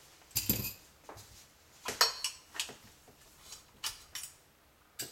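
A sharp knock about half a second in, another near two seconds, then light metallic clicks and clinks as the disassembled shotgun's receiver and small steel parts are handled.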